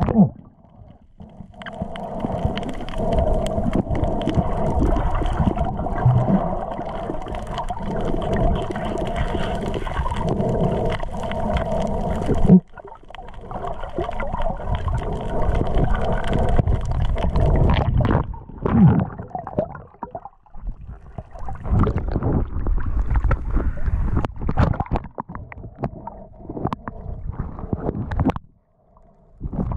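Muffled water sloshing and underwater rumble picked up by an action camera held in the sea as it dips below and rises above the surface. The sound cuts off sharply and returns several times.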